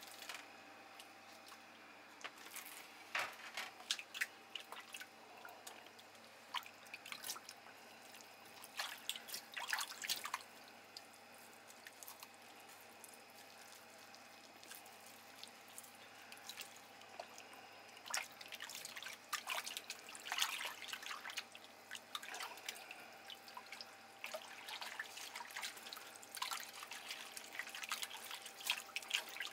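Water splashing and dripping in irregular clusters as hands work skeins of salmon roe in a bowl of water, rubbing the eggs loose from the membrane.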